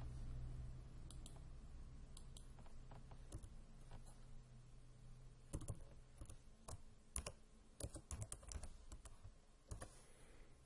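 Faint typing on a computer keyboard, with scattered keystrokes at first and then a quicker run of keys in the second half.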